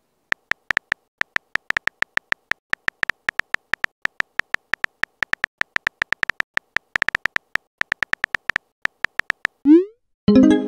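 Phone-keyboard tap clicks from a texting app as a message is typed, several taps a second in an uneven rhythm. About nine and a half seconds in, a quick rising swoosh as the message is sent, then a short pitched chime that rings out.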